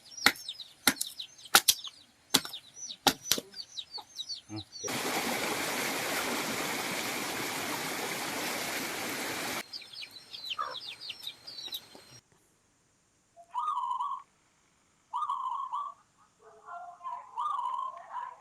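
Small birds chirping rapidly among sharp clicks. About five seconds in, a steady even hiss cuts in for about four and a half seconds, followed by more chirps and then a few separate, lower calls about a second long each.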